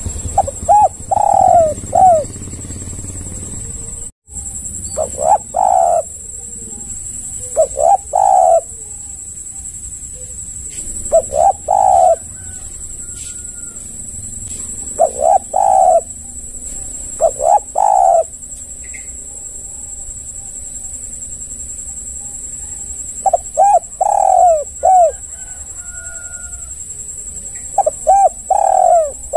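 Spotted dove (tekukur) cooing: about eight phrases of several quick notes each, repeated every few seconds with pauses between. A steady high-pitched hiss runs underneath.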